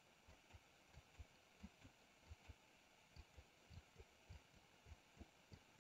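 Near silence: faint room tone with soft, irregular low thumps, two or three a second.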